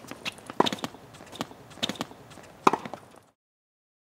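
Tennis balls hit with rackets and bouncing on a hard court during a doubles rally, a string of sharp pocks of uneven loudness, the strongest about half a second in and near three seconds. The sound cuts off suddenly shortly after.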